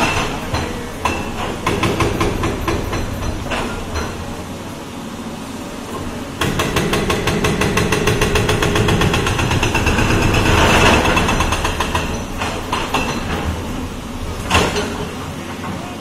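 Crawler excavator demolishing a concrete building: its diesel engine runs under load while rapid, evenly spaced hammering blows strike the concrete in bursts, the longest from about six to twelve seconds in. One loud crack comes near the end.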